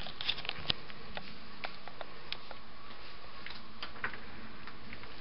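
Handling noise from a handheld camera being carried along with light footsteps: scattered soft clicks and taps over a steady hiss, a few close together near the start and sparser after.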